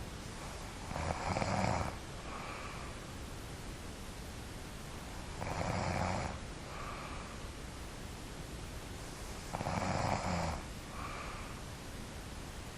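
A person snoring in sleep: three loud snores about four seconds apart, each followed by a shorter, fainter sound.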